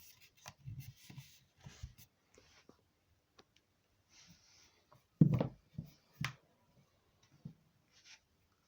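Handling noises: scattered light rubs and clicks, with one louder thump about five seconds in and a smaller knock about a second later.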